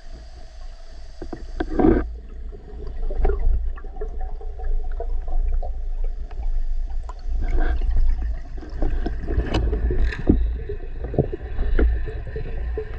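Underwater sound through a camera housing: a steady low rumble of moving water with many scattered clicks and knocks from the diver's gear, a few of them louder.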